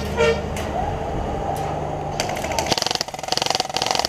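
A vehicle engine running steadily, with a short horn toot at the start. In the second half there are rapid bursts of full-auto airsoft gunfire.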